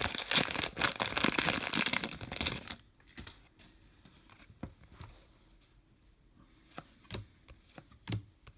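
Trading card pack wrapper being torn open and crinkled for nearly three seconds, then a few soft ticks as the cards are handled.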